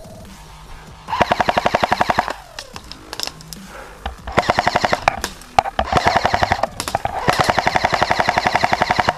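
Airsoft electric rifle firing four bursts of rapid automatic fire with short pauses between; the last burst lasts about two seconds.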